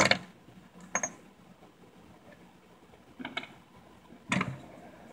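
Fidget spinners clicking and clacking against one another and the wooden tabletop as they are stacked, four separate short clacks spread out with quiet between.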